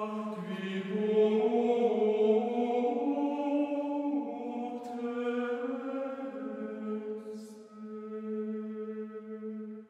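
A slow sung chant with a single melodic line of long held notes moving from pitch to pitch, ending on a long held note.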